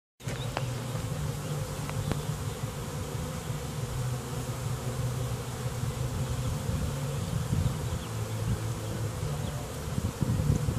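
A honeybee swarm buzzing in a steady low drone, the colony clustered in the open after swarming.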